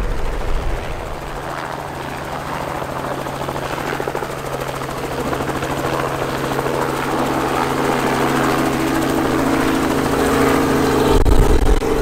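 Small float-equipped helicopter flying close by, its rotor and engine running steadily and growing gradually louder as it comes nearer.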